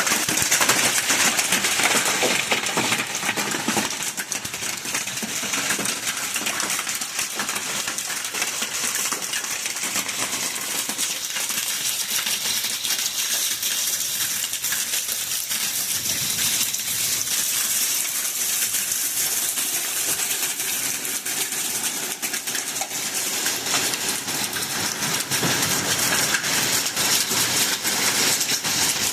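Hail falling in a hailstorm: a dense, steady clatter of countless small hard impacts.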